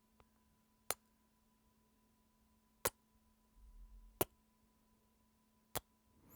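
Four short, sharp clicks at irregular spacing, about one to two seconds apart, over a faint steady hum. A brief low rumble comes just before the third click.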